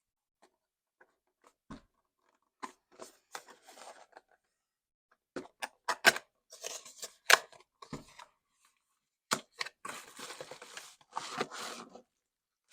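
Packaging being handled and torn open: irregular bursts of crinkling and tearing with a few sharp clicks, loudest about six to seven and a half seconds in.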